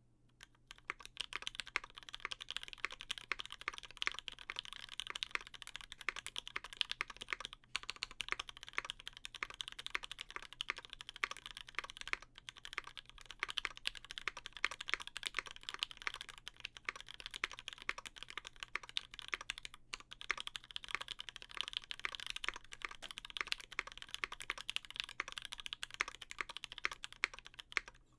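Percent Studio Skog-Reboot mechanical keyboard with an aluminum plate, lubed Gateron Ink switches and GMK keycaps being typed on fast and continuously, with three brief pauses. The board has silicone dampening between PCB and plate, and the builder still finds its sound a bit hollow.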